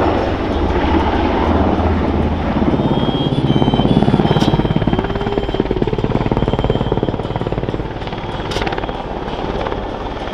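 NH90 military transport helicopter flying a display pass: the fast, even chop of its main rotor over its twin Rolls-Royce Turbomeca turboshaft engines, loudest about four seconds in and easing off near the end.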